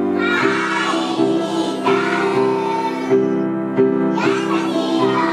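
A group of children singing a song together with piano accompaniment. The voices come in about half a second in over regular piano chords, with a short break for breath near four seconds.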